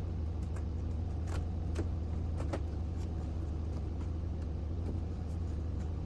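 Motor vehicle running with a steady low drone, with a few faint light ticks over it.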